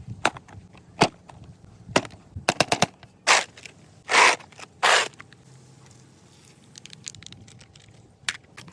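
Toy car packaging being handled and opened: sharp clicks and snaps, a quick run of clicks, then three short noisy bursts of scraping, followed by faint small ticks.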